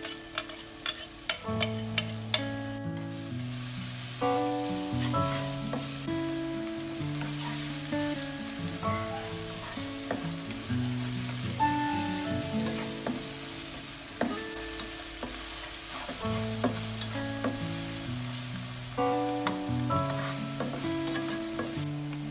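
Chopped chili and aromatics sizzling in hot oil in a nonstick wok as they are stirred with a spatula, with sharp pops and clicks in the first few seconds. Background music with plucked melody notes plays throughout.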